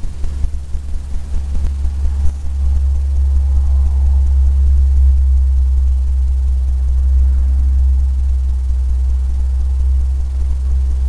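A low, steady rumble that swells about two seconds in and eases off slightly near the end.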